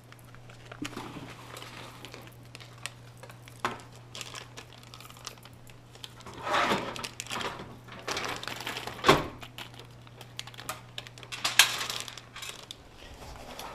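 Handling noise of computer parts and screws: scattered small clicks and rustles, with two sharper knocks about nine and eleven and a half seconds in, over a faint steady hum.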